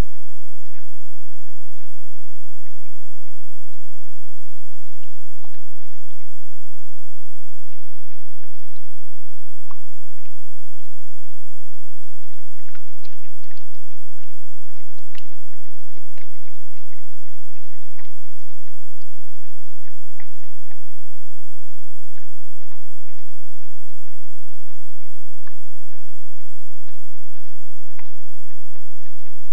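Bull moose drinking and mouthing at a muddy puddle: scattered wet slurps, clicks and small splashes, thickest around the middle. Under them runs the camera trap's own steady electronic hiss and hum.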